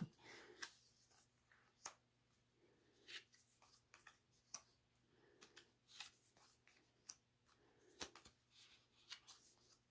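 Faint, scattered clicks and light taps of stiff photo cards being handled and laid one by one onto a pile on a rug, about one a second.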